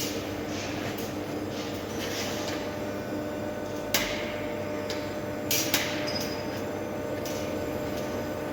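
Arc welding on a steel tank: the steady hiss and hum of the welding arc, broken by a sharp metallic knock about four seconds in and two more around five and a half seconds.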